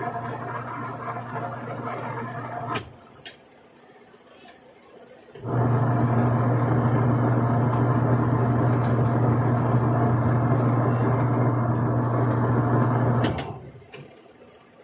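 Repaired twin-tub washing machine's electric motor humming steadily, stopping with a click about 3 s in, starting again a couple of seconds later and running about eight seconds before clicking off again near the end.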